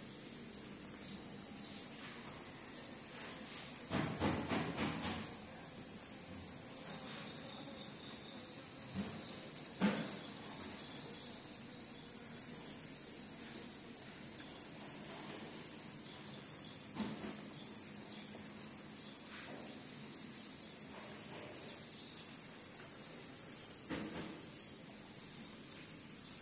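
Crickets chirping in a continuous high-pitched trill, with a few faint knocks now and then.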